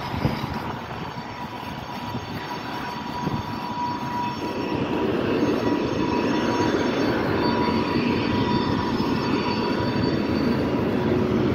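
Diesel train locomotive running, a steady drone with a thin high whine, growing louder from about four seconds in.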